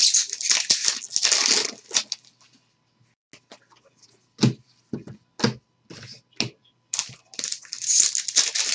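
Trading-card pack wrappers crinkling and tearing open, with a run of sharp clicks in between as the cards are flicked through one at a time. A second wrapper crinkles open near the end.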